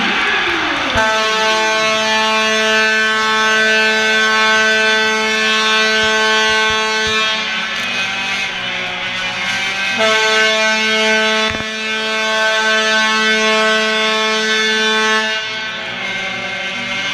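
Loud arena horn holding one steady pitched note. It starts about a second in, weakens for a couple of seconds midway, then sounds again until near the end. A single sharp knock cuts through partway.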